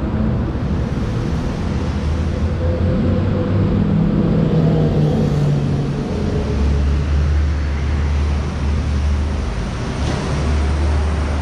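Busy city road traffic: vehicle engines running and tyres on the road, with a deep, steady engine rumble setting in about halfway through.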